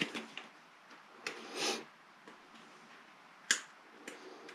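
Hands handling an adhesive mounting pad and its paper backing: a few light clicks, a brief rustle about a second and a half in, and one sharp click about three and a half seconds in.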